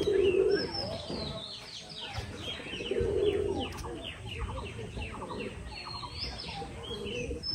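Birds chirping all around, many short falling chirps overlapping, with a lower, steadier call at the start and again about three seconds in.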